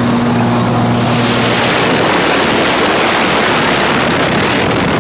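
Loud rushing wind noise over the microphone, filling out about a second in as a steady aircraft engine drone fades away: the wind rush of a tandem skydive.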